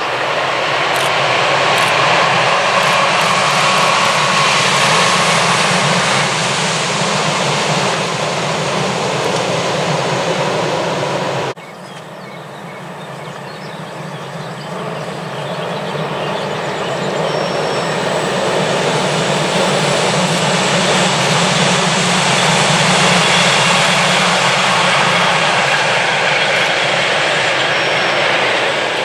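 Train passing close by: a loud, steady rush of wheels and running gear. It breaks off abruptly about twelve seconds in, then builds up again.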